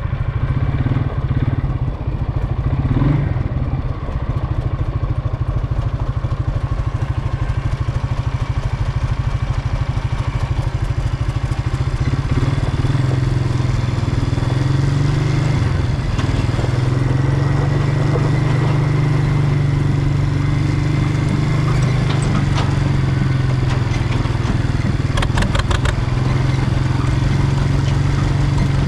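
Tractor engine running steadily, with a fast, even low pulse.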